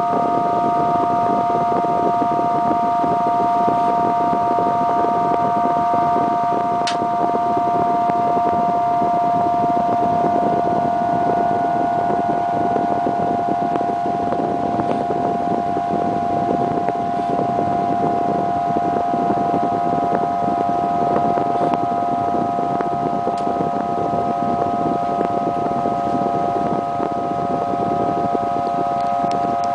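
Wooden Aeolian harp sounding in the wind: its strings hold several high overtones at once as a steady, eerie chord over the rush of the wind. The chord shifts slowly, with an upper note fading about halfway and a lower note entering near the end.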